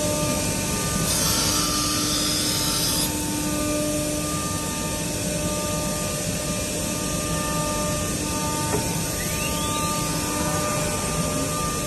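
Automatic door-lock drilling machine running with a steady hum, its spindles cutting wood with a louder hiss from about one to three seconds in.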